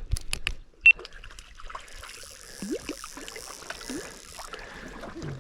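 River water splashing and trickling while a small trout is landed and handled, with a few sharp clicks in the first second.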